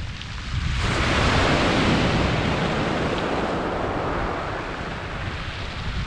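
A wave breaking and washing up a shingle beach of pebbles: the rush of surf swells about a second in, then slowly dies away as the water spreads up the stones.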